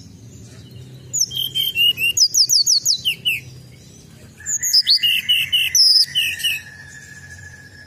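Hill blue flycatcher (tledekan gunung) singing: two bursts of rapid, varied high whistled notes, each about two seconds long. A steady high tone starts partway through the second burst and holds.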